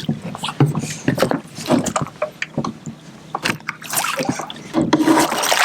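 Irregular knocks and splashes as a blue catfish is brought into a landing net beside a boat.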